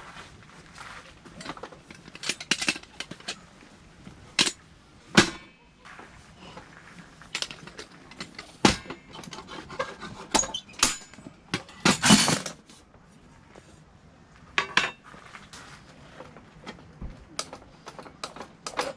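Tableware and cutlery clinking and knocking during a meal: irregular light clinks and taps, with louder knocks about five seconds in and again around twelve seconds.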